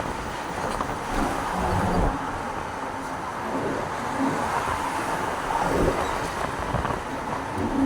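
Road and engine noise from a moving truck: a steady rush with uneven low rumbling.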